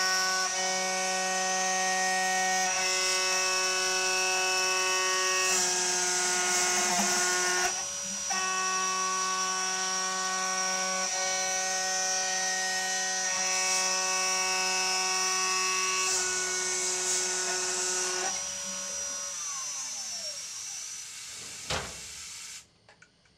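High-speed CNC spindle of a home-built mill whining steadily while a 6 mm two-flute end mill cuts 10 mm aluminium, with a brief dip about a third of the way in. Near the end the spindle spins down, its whine falling in pitch and fading, then a single sharp click, and the sound cuts off abruptly.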